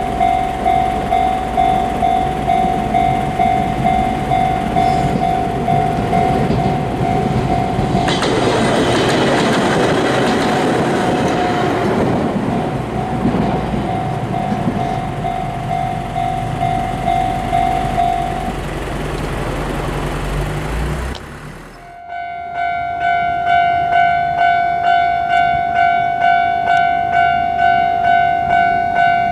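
Japanese railway crossing alarm bell ringing in a steady run of dings, about one and a half a second. An electric train passes over the crossing from about 8 s to 16 s, its rumble and wheel clatter loudest near the middle. The bell stops a little later. Near the end another crossing's bell, higher and brighter in tone, starts ringing at the same even pace.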